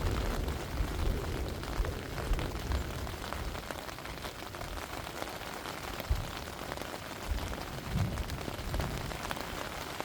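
Steady rain pattering on a tent, a dense patter of drops with a few low rumbles.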